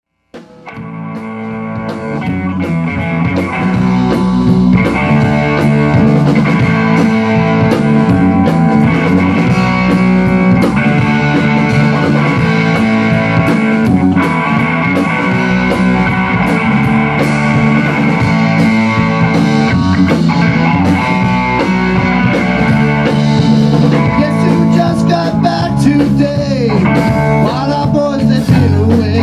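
A rock band playing together: Tama drum kit, electric guitar and bass guitar, the music rising from quiet over the first few seconds and then running loud and steady.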